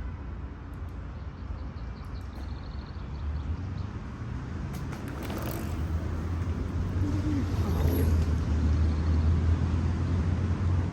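Low rumble of wind buffeting the microphone, as from riding a bicycle, growing louder from about the middle on. A brief run of light ticks comes about two seconds in.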